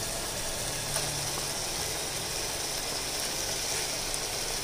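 Steady sizzle of mutton frying in a pressure cooker pan, with a faint clink of the spoon against the bowl about a second in.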